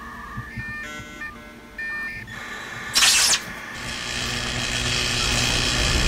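Electronic sound effect: beeping tones that step between several pitches, then a sharp burst of hiss about three seconds in, then a rushing noise that builds steadily louder toward the end.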